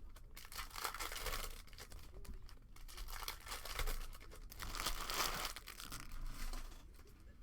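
Trading-card packaging being torn open and crinkled by hand, in several rustling swells.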